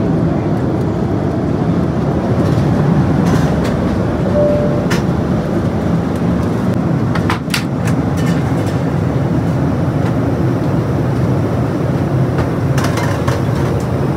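Steady cabin noise of an Airbus A330-200 airliner in flight: a deep, even rush of airflow and engine noise. A few light clicks and knocks come through it.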